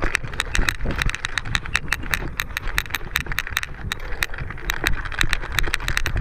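Mountain bike rattling while riding over rough trail: rapid, irregular clicks and knocks from the bike, over a steady low rumble.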